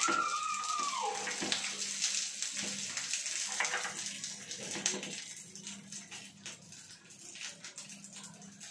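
Wheat-flour adai frying in oil on a hot flat pan: a steady sizzling hiss that fades over the last few seconds, with a short falling tone in the first second.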